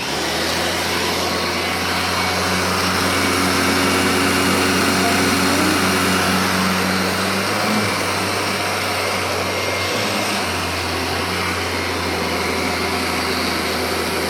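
Kirby upright vacuum cleaner switched on and running steadily at full speed, a loud even motor whine over a low hum: a test run after reassembly showing the machine is working.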